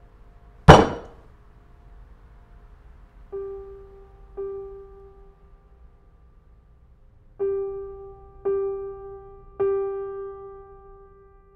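Sparse film-score piano: one note struck slowly five times, each left to ring, with a single loud sharp crash under a second in.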